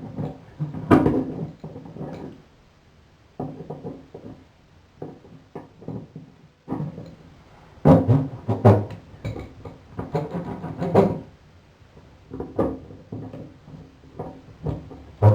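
Needle-nose pliers clanking and scraping against a metal bathtub drain strainer as it is worked loose, in irregular bursts with a short metallic ring and quiet pauses between.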